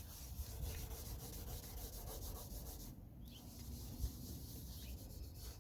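Gloved fingers rubbing headlight restorer compound in circles on a hazy plastic headlight lens: a faint, steady rubbing.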